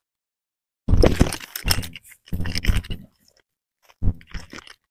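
A man's voice speaking in three short phrases, with dead silence between them.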